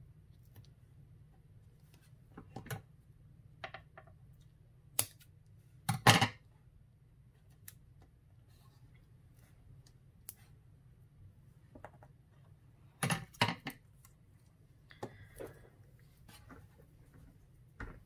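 Paper and tape being handled on a cutting mat: scattered short rustles, taps and clicks as strips of tape are pressed down around a card's window, the loudest about six seconds in and another pair about thirteen seconds in.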